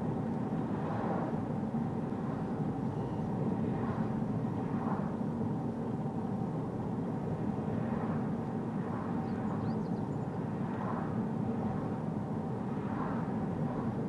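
Steady tyre road noise from Bridgestone Regno tyres on the road surface, heard inside a Toyota Corolla Touring Hybrid's cabin with the driver's window open a couple of centimetres. Brief, higher-pitched swells of rushing noise come and go every few seconds.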